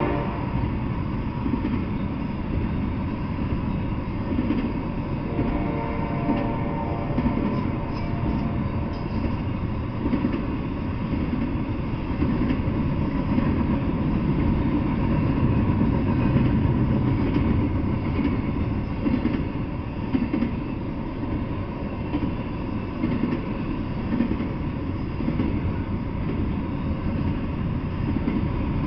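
Double-stack intermodal container train rolling past, its wheels on the rails making a steady, continuous rumble, with a faint pitched tone for a few seconds about five seconds in.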